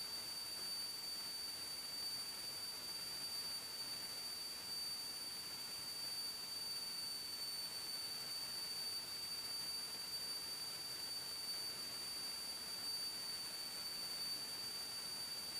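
Faint steady electrical hiss with a thin, constant high-pitched whine, the line noise of an aircraft intercom audio feed; the engine itself is not heard.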